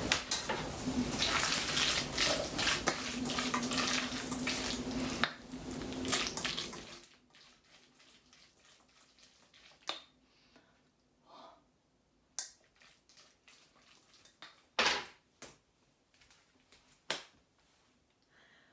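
A wooden spoon working mashed avocado in a stainless steel mixing bowl: scraping and clinking over a steady hiss and low hum that cut off about seven seconds in. After that come a few separate knocks of the spoon against the bowl.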